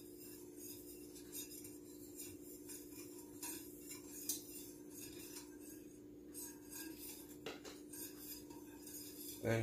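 Wire whisk scraping and clinking faintly against a stainless steel saucepan as an egg yolk mixture is stirred, with a few light clicks, over a steady low hum.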